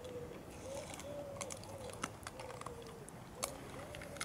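Dogs crunching and chewing at something on a stone path: sharp, irregular clicks and crunches. Under them runs a soft, high whine that rises and falls about twice a second.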